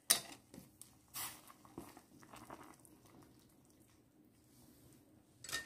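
Wooden chopsticks knocking against a stainless steel pot and stirring ramyeon noodles and rice cakes in broth: a few sharp clicks and brief rustling splashes in the first two seconds, then quieter, with another clatter near the end.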